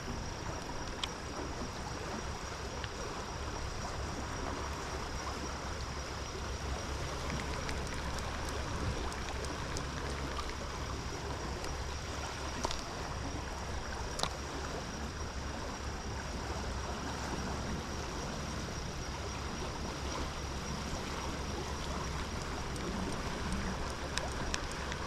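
Steady rush of flowing stream water, with a low rumble underneath and a couple of faint clicks about halfway through.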